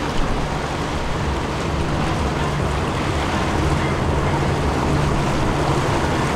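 Steady rush of wind and water aboard a catamaran under way, with a steady low hum underneath.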